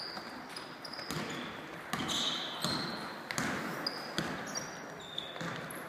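Basketball game on a hardwood court in a large sports hall: sneakers squeak on the floor several times, the ball bounces a few times as it is dribbled, and players' voices come and go.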